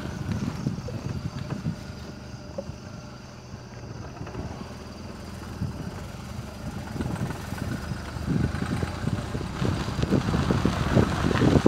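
Maruti Suzuki Alto's small three-cylinder engine running as the car drives along a rough forest dirt track, with low rumbling and wind buffeting the microphone. The rumbling grows louder over the last few seconds.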